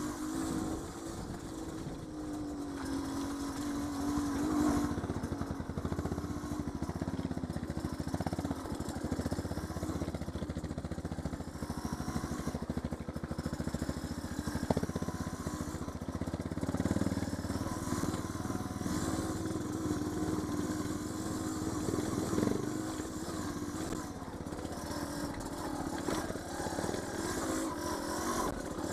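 Trail motorcycle's engine running under way over a rough, muddy track, its pitch rising and falling with the throttle, with a sharp knock about halfway through.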